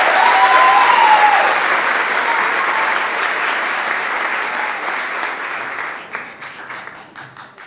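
Audience applause with a few whoops of cheering at first, dying away to a handful of scattered single claps as it fades out.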